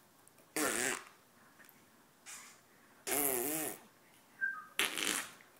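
Three short fart noises with a wavering, warbling pitch, about half a second in, about three seconds in and near the end.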